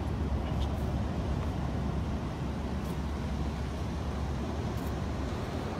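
Wind buffeting a phone microphone: a steady, fluttering low rumble with faint hiss above it.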